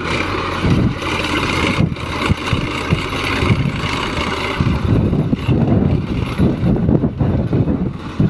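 Swaraj 855 FE tractor's three-cylinder diesel engine running steadily under load while it pulls a rotavator through the soil, with wind buffeting the microphone.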